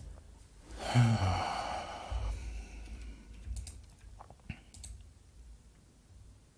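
A man's heavy sigh about a second in, followed by a few short computer keyboard clicks.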